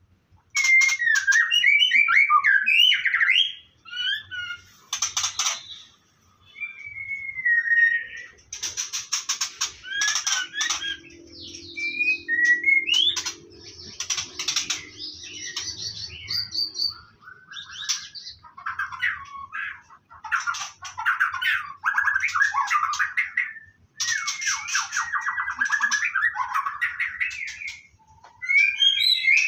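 White-rumped shama calling in a varied run of whistled glides, chirps and rapid chattering trills, with short pauses between phrases.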